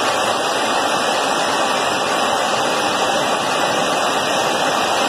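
Steady, even rushing noise of an aircraft in flight, heard from on board.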